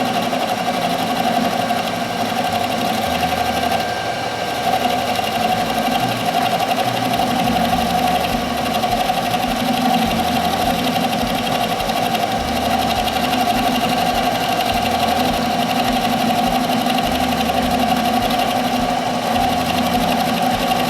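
A small machine running steadily, giving an even, unbroken whirring hum.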